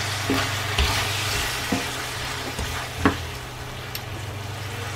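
Onion, bell peppers and spring onion sizzling in sweet-and-sour sauce in a ceramic-coated frying pan, stirred with a wooden spatula that knocks and scrapes against the pan a few times.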